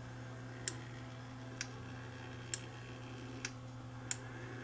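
Automatic pet feeder's dispensing mechanism advancing after the feed button is pressed: five light, sharp clicks roughly a second apart, over a faint steady low hum.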